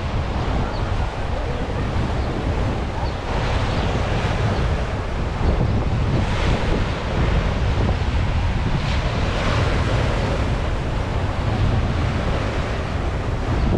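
Sea waves washing onto the shore, swelling every few seconds, under a heavy rumble of wind buffeting the microphone.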